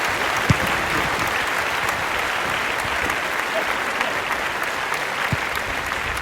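Steady applause, with a couple of sharp thuds about half a second in and near the end.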